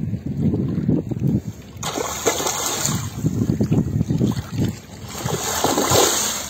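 A large hooked fish thrashing and splashing at the surface of shallow water: one bout of splashing about two seconds in, then a bigger, louder burst of splashing near the end. Wind buffets the microphone throughout.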